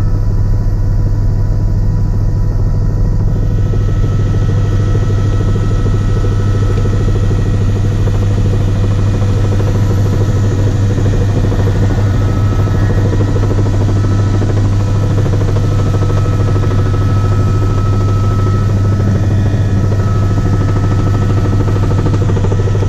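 Helicopter in flight heard from inside the cabin: a loud, steady drone from the rotor and engine, with a fast, even pulse from the main rotor.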